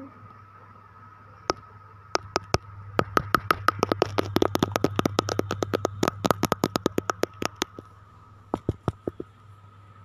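A fast run of sharp clicks or taps, about eight a second, lasting roughly four and a half seconds. A few single clicks come before it and a short cluster follows near the end, over a faint steady hum.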